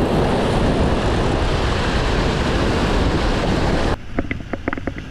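Rough surf breaking and washing over rocks, with wind on the microphone: a loud, even roar that cuts off suddenly near the end. A quick run of short clicks follows.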